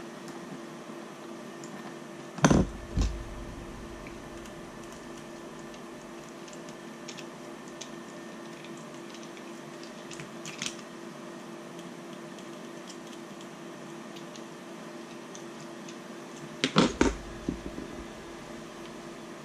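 Small tools and plastic parts knocking on a workbench, twice about two and a half seconds in and in a quick cluster near the end, with faint clicks between as tiny screws are driven by hand into a 3D-printed gimbal part. A steady hum runs underneath.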